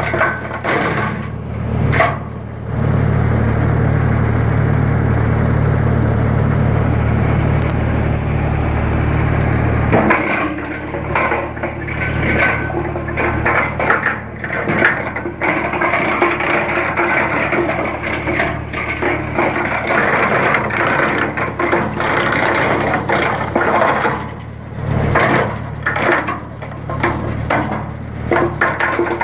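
Geo Tech Pro TCP 100 tractor-mounted wood chipper running with a steady low drone; from about ten seconds in, branches are fed through and chipped with continual irregular cracking and splintering.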